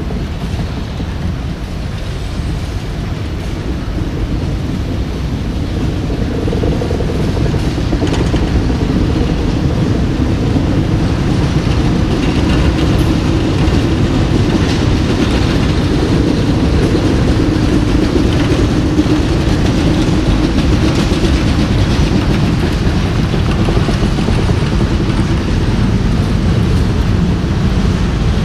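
Freight train of CSX high-cube boxcars rolling past: steady rumble of steel wheels on rail. A low droning tone comes in after a few seconds and fades out toward the end.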